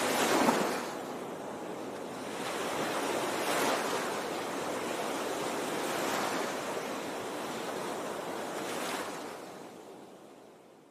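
Sea waves washing and surging, with wind buffeting the microphone. The wash swells every few seconds and fades out near the end.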